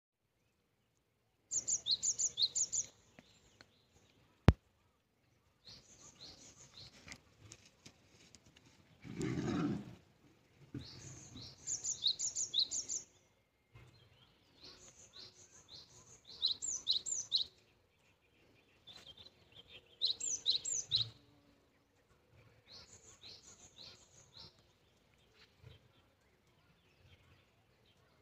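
A songbird singing, again and again, short phrases of four to six quick, high, down-slurred notes. A single sharp click about four and a half seconds in, and a brief low rumble around nine to ten seconds in.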